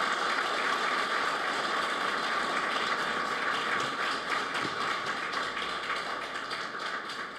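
Audience applauding: steady clapping of many hands that dies away near the end.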